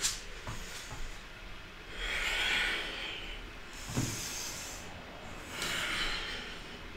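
Person breathing audibly through a yoga vinyasa: two long, hissing breaths, one about two seconds in and one near the end. Soft thumps of feet and body on the yoga mat come at the start and again about four seconds in.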